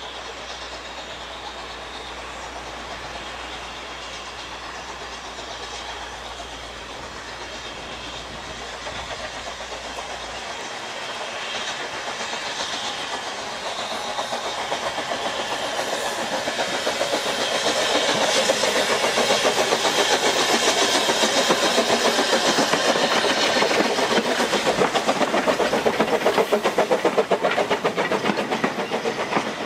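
Ffestiniog Railway 2 ft gauge steam train approaching and passing close by: the locomotive's working beats and running gear grow steadily louder and come fast and even once it is alongside.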